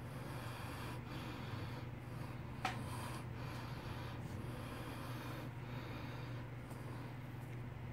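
A man breathing through his nose and mouth with his mouth full of dip, the breaths swelling and fading about once a second over a steady low hum. There is one sharp click about two and a half seconds in.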